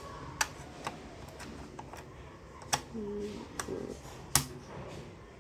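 A handful of sharp plastic clicks and taps from multimeter test probes being handled, the loudest about four seconds in.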